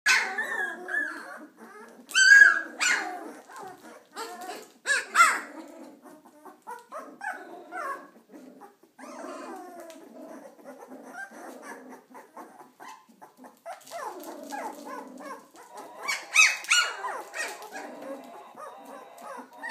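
A litter of 18-day-old Border Collie puppies yapping and squealing, many short high-pitched calls that rise and fall in pitch, with louder outbursts about two seconds in, around five seconds and again near the end.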